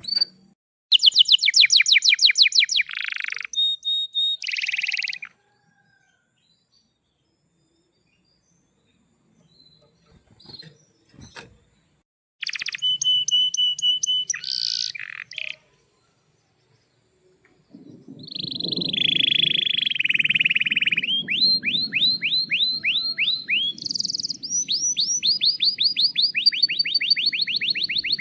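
Male domestic canary singing phrases of fast rolling trills and repeated chirps, broken by pauses of a few seconds. From about two-thirds of the way in, the song runs on without a break over a low background rumble.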